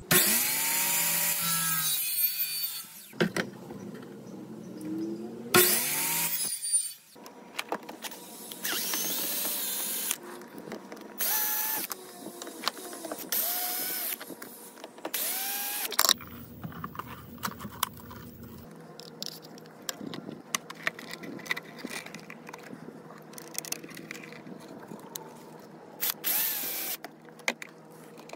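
A DeWalt miter saw cutting a polycomposite stair rail, its whine falling away after the cut. Then a DeWalt cordless drill driving screws into the rail brackets in a series of short runs, with lighter clicks between them.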